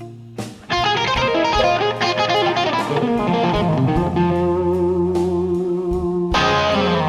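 Electric guitar solo in a live blues band performance, over bass and band backing. After a short lull, a fast run of notes starts under a second in, gives way to a long held note, and a second quick flurry comes near the end.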